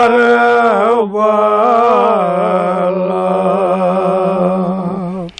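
A man's voice chanting a Kashmiri marsiya, an elegy for Imam Hussain, with no accompaniment. He draws the words out in a wavering line, then holds one long, steady note for about three seconds before stopping just before the end.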